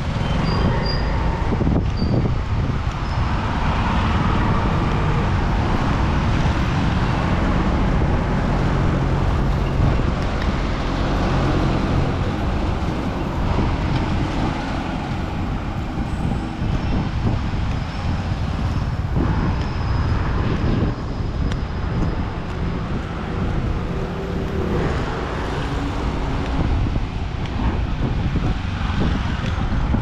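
Busy city street traffic: a steady, continuous mix of vehicle engines running and passing.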